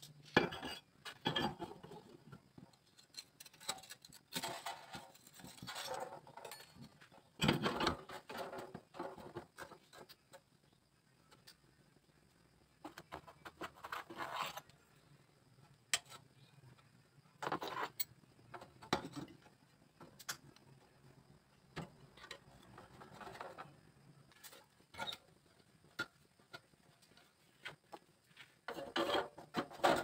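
Irregular knocks, taps and clatter of a bent bamboo cage frame and metal tools being handled on a sheet-metal bench top, with a busier run of clatter near the end as a C-clamp is set on the frame.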